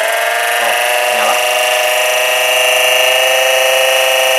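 12-volt DC oil transfer pump running dry off a battery, a quite loud, steady high-pitched whine with many overtones. Its pitch edges up over the first second as the motor finishes spinning up after being switched on, then holds steady.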